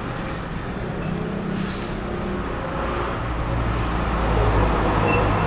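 Road traffic noise, with a motor vehicle's engine rumble growing louder in the second half, as if a vehicle is drawing close.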